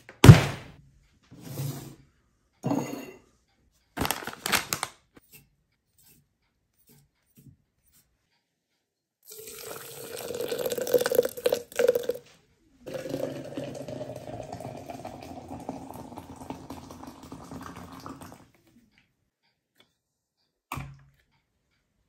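Water poured in a stream onto coffee grounds in a glass French press, in two pours: a short one, then a longer steady one whose tone climbs slightly as the press fills. A few knocks and clatter come in the first five seconds, and a single short knock comes near the end.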